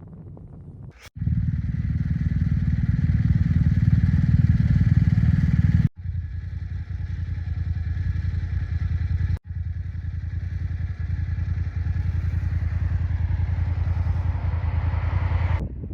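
Motorcycle engine running under way, a loud steady drone with a fast pulse, starting about a second in and cut off abruptly twice along the way.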